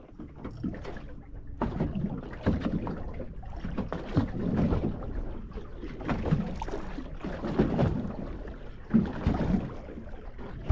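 Choppy water slapping against the hull of a small fishing boat as it rocks in the swell, in uneven surges with occasional knocks, and wind buffeting the microphone.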